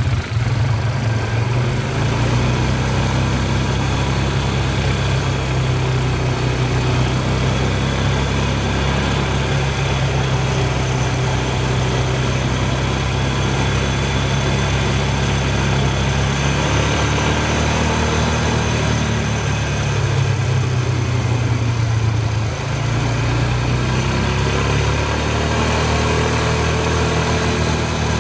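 ATV engine running steadily while riding a dirt trail, with wind and tyre noise over the engine hum. The engine note shifts in pitch a couple of times as the speed changes, with a short dip in loudness about two-thirds of the way through.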